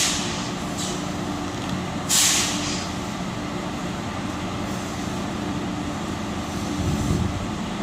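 Amtrak Acela electric power cars humming steadily at a standstill, with two short, loud bursts of compressed-air hiss, one at the start and one about two seconds in. A low rumble swells near the end.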